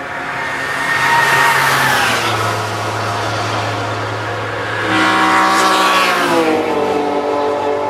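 Racing cars passing at high speed under full throttle. There are two loud passes, about a second in and about five seconds in, and each engine note drops in pitch as the car goes by. Another engine note carries on underneath the whole time.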